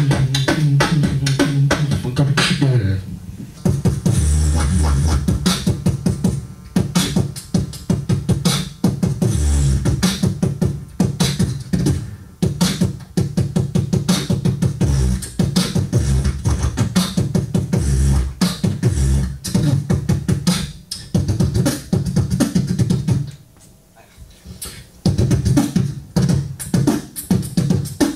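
Beatboxing into a handheld microphone: rapid percussive mouth sounds over deep humming bass. Near the end it drops off for a moment, then the rhythm picks up again.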